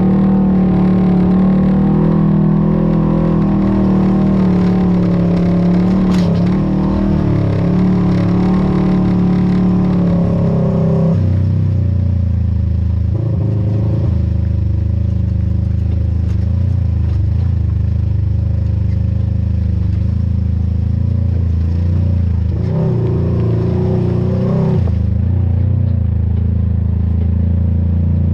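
Off-road vehicle engine running steadily at a higher speed, then dropping to a lower, deeper note about eleven seconds in, with a brief rise in pitch near the end.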